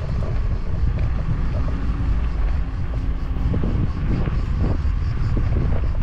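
Wind noise on the microphone: a loud, steady low rumble that rises and falls, with a faint steady hum for a couple of seconds in the middle.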